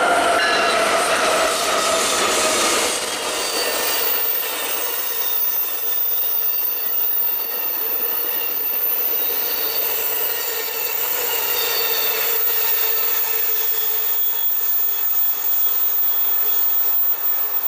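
Amtrak Superliner double-deck passenger cars rolling past on the rails, a steady rush of wheels with high, sustained wheel squeal ringing over it.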